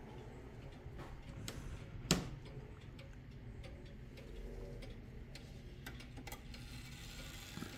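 Oak-cased 1920s wall pendulum clock ticking steadily, with one sharper, louder click about two seconds in as its glass case door is opened.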